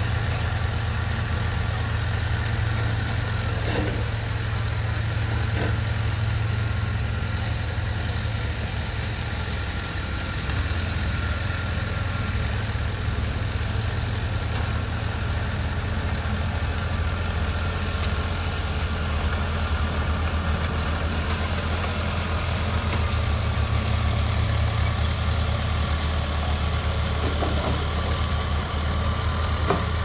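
Small crawler bulldozer's diesel engine running steadily while the machine moves and pushes sand, a continuous low drone.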